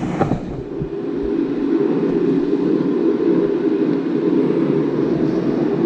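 Steady droning rush of a shop heater running, with a couple of light knocks in the first second or so.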